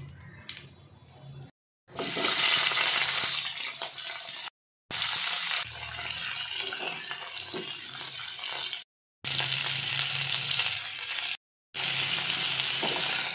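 Cauliflower pieces frying in hot oil in a pan, a loud steady sizzle, broken off by brief silences four times.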